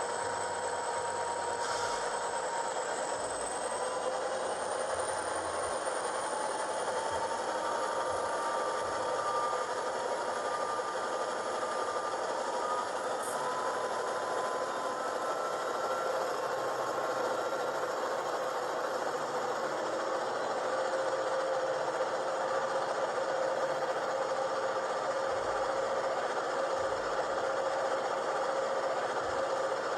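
Simulated EMD 645 diesel prime mover from the sound system of a GP40P-2 model locomotive, played through small Scale Sound System speakers, running steadily with a few thin tones slowly rising in pitch.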